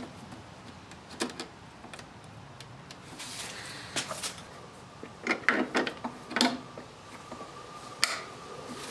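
Scattered plastic clicks and knocks of a fuel pump relay being pushed back into a car's under-hood relay box and handled, with a quick run of clicks a little past halfway.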